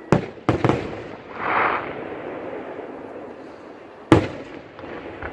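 Aerial fireworks going off: three sharp booms in quick succession in the first second, a short hissing swell, then another single boom about four seconds in.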